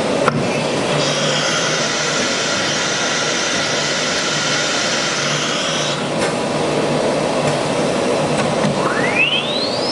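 CNC router running steadily with a vacuum-like hiss. There is a sharp click just after the start, and near the end a whine sweeps up in pitch while another falls.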